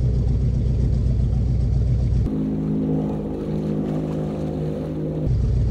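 Amphibious car's engine running on the water: a deep rumble that switches abruptly about two seconds in to a steady, higher engine note, then back to the deep rumble near the end.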